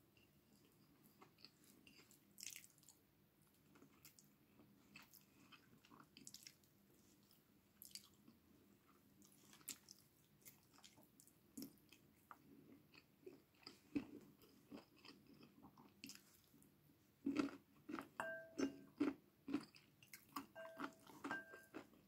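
Close-up chewing of chicken afritada and rice eaten by hand, with soft mouth clicks, faint at first and getting louder and busier in the last few seconds.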